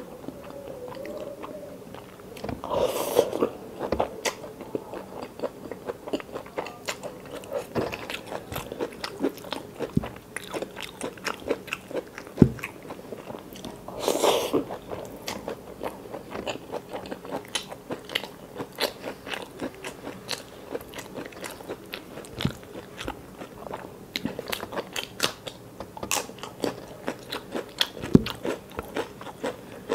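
Close-miked chewing and biting of mouthfuls of rice, curry and stir-fried water spinach, with many quick wet mouth clicks. Two longer, louder mouth noises stand out, about three seconds in and again about fourteen seconds in.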